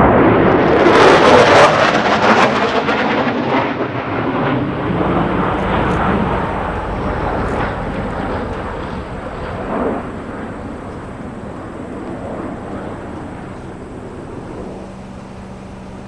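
Navy fighter jet passing low overhead: a loud crackling jet roar peaks about a second or two in, then rumbles away and fades slowly.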